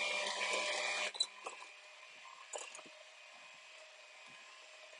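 Electric hand mixer running with its beaters in a glass bowl of mashed red potatoes. About a second in, the motor noise drops off sharply, leaving a faint hum and a few light clicks.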